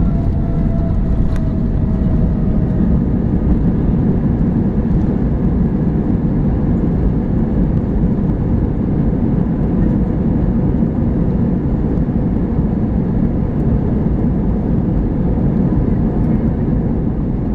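Steady rumble of an Airbus A321 heard from inside the passenger cabin: engine and airflow noise, deep and even. A faint thin whine fades out in the first three seconds.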